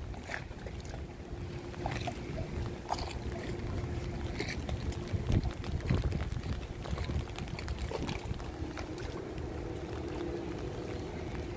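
A motor running with a steady low rumble and a constant hum, with scattered small clicks and knocks over it.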